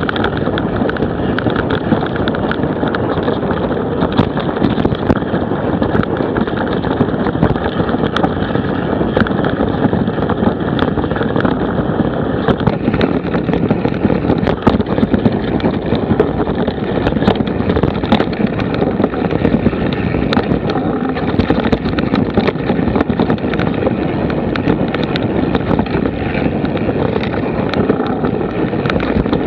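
Mountain bike riding fast over a dirt forest trail, heard from a camera on the bike or rider: steady tyre rumble and frame rattle with many small knocks, mixed with wind buffeting the microphone.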